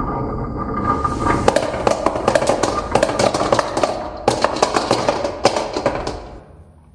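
Marbles rolling and clattering down a HABA wooden marble run, a steady rolling rumble with many quick clicks and knocks as they hit the track pieces. The rolling fades out about six seconds in.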